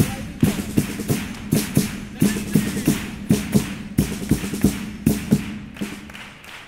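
Instrumental passage of a Cádiz carnival chirigota: sharp drum strokes in a quick, uneven rhythm of about three or four a second over a low held note, growing quieter near the end.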